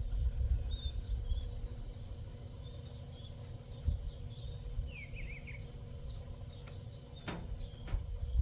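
Small birds chirping and one quick falling trill, over a fluctuating low rumble, with two sharp clicks about four and seven seconds in.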